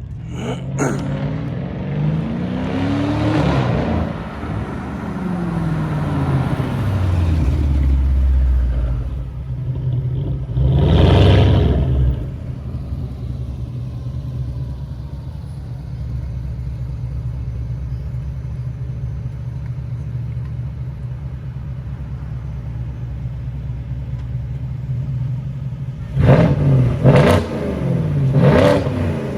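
BMW 650i's N63 twin-turbo V8, with catless downpipes and a muffler delete, revving up and falling back. It gives one short sharp rev about eleven seconds in, settles into a steady idle, then takes a few quick rev blips near the end.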